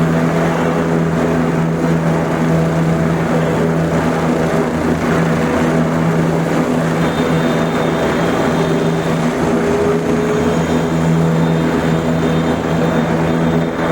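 Helicopter running steadily: a constant, loud engine and rotor drone with a steady hum.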